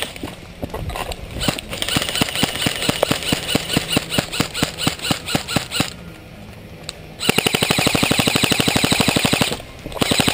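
Airsoft electric guns firing: separate rapid shots about four or five a second for several seconds, then, after a short pause, a long full-auto burst of over two seconds, with another burst starting just before the end.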